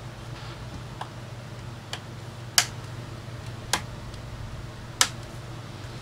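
Plastic snap-fit tabs of a Samsung RF511 laptop's bottom case clicking into place as hands press along its edges: five sharp clicks about a second apart, the loudest about two and a half seconds in.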